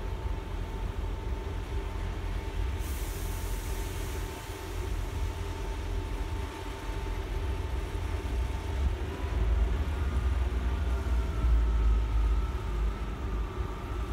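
Class 158 diesel multiple unit idling at the platform with a steady engine drone and a thin whine; about nine seconds in the engines open up, the drone grows louder and rising whines come in as the train begins to pull away.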